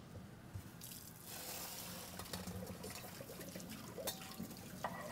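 Kitchen tap water running over hot cooked potatoes to rinse and cool them. The flow starts about a second in and runs steadily, with a couple of light knocks near the end.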